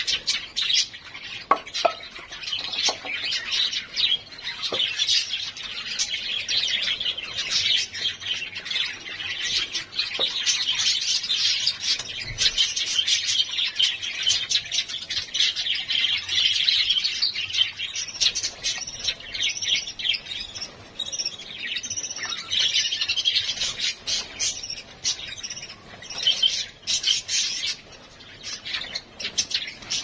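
Pet budgerigars chirping and chattering continuously, a dense twittering that never breaks.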